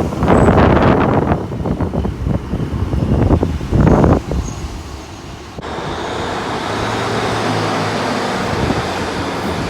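Gusty wind buffeting the microphone, then, after an abrupt cut a little past the middle, a diesel train's engine running steadily with a low hum.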